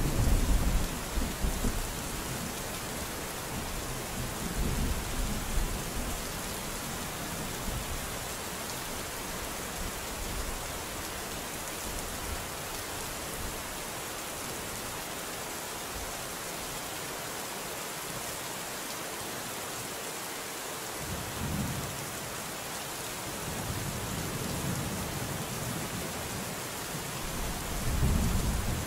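Steady, soft rain hiss with thunder. A loud clap right at the start rolls on for a couple of seconds, further rumbles come about five seconds in, and more roll in around twenty-one seconds and again near the end.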